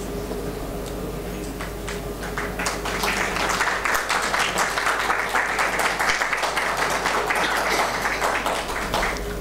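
Audience applauding in a hall: scattered clapping swells into steady applause a few seconds in, over a steady electrical hum.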